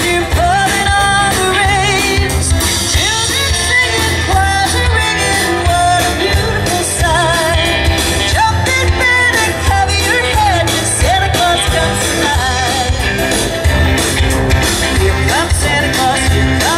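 Live band music: a woman singing into a microphone over electric guitar and drums, with a steady beat.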